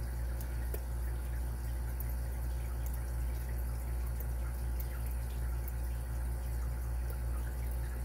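Faint ticks and scratches of a lock pick working the pins of a Carbine padlock under tension, the clearest tick about three-quarters of a second in, over a steady low hum.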